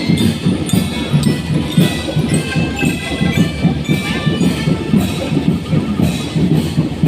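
Marching drum band playing: drums beating a steady rhythm under a melody.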